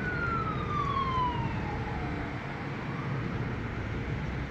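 A siren wailing, its pitch sliding down over a couple of seconds, over a steady low rumble.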